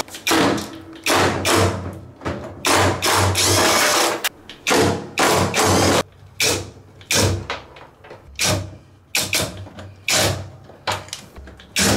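Irregular knocks, clacks and scrapes of hand tools and plastic and metal parts being handled while a front-load washing machine is taken apart, roughly one every second or so, with a longer scraping hiss about three seconds in.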